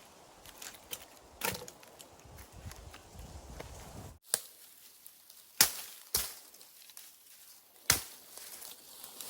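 Five sharp chopping strikes at uneven intervals; the two loudest come in the second half.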